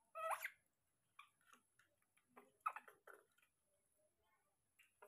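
Faint clicks and small wet smacks as a baby macaque eats porridge off a spoon, with one short rising squeak just after the start.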